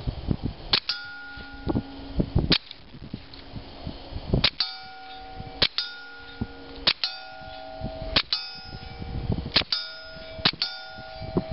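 Suppressed .22 pistol, a Walther P22 with a YHM Mite suppressor, fired about eight times at a slow, uneven pace, one shot every one to two seconds. Each shot is followed by the ringing clang of the AR500 steel plate being hit.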